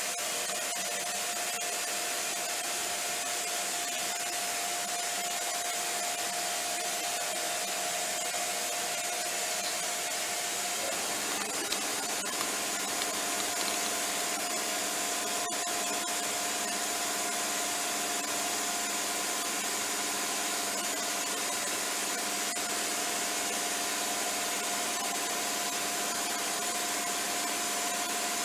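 Hardinge GX-1000 CNC vertical machining centre running without cutting: a steady hiss with a steady whine, and further tones join about eleven seconds in.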